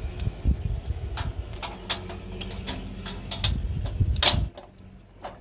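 Clicks and metallic rattles of a hand working the lock of a sheet-metal door, with the sharpest click a little after four seconds. A low rumble underneath cuts off suddenly about four and a half seconds in.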